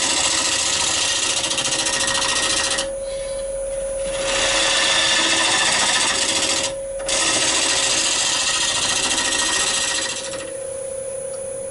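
Wood lathe running with a steady whine while a turning tool cuts across the face of a spinning olive-wood blank, a loud hiss of cutting. The cut stops for about a second around three seconds in, briefly near seven seconds, and again near the end, leaving only the lathe's whine.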